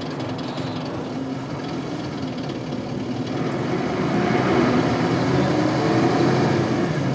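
Isuzu Cubic KC-LV380L city bus's 8PE1 V8 diesel engine running steadily. From about three seconds in its note rises and grows louder as the bus accelerates.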